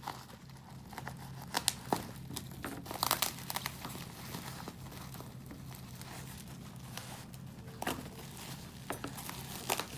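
Parcel packaging being crinkled and torn by hand, in scattered crackles that come thickest in the first few seconds.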